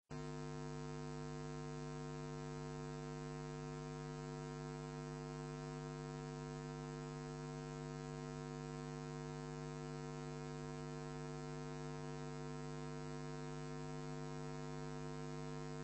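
Steady electrical mains hum: a low drone made of a stack of even overtones, with no change in pitch or level.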